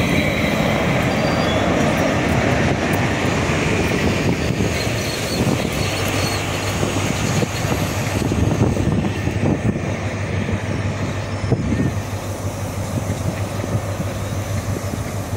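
Class 43 HST diesel power cars running as the train moves past the platform. Engine drone and wheel-and-rail rumble with scattered clicks, and a steady low hum that settles in about six seconds in.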